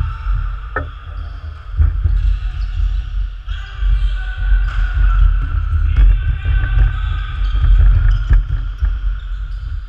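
Running footsteps and thuds of players on a wooden sports-hall floor, many short knocks echoing over a low hall rumble.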